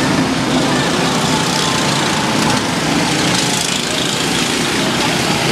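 Go-kart engines running on the track, several small engines at once making a steady, unbroken drone.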